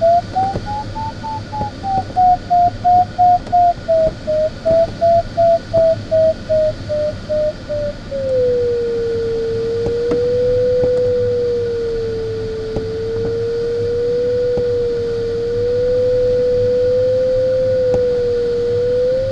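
Glider's audio variometer beeping about twice a second, its pitch rising and then easing down: the climb signal in lift. About eight seconds in it switches to a lower continuous tone that wavers slightly, the signal for sinking air.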